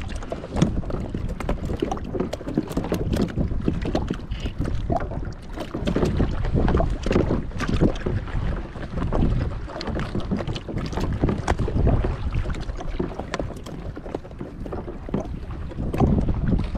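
Wind buffeting the microphone over open water, with water lapping and slapping against a plastic sit-on-top kayak's hull in small irregular knocks.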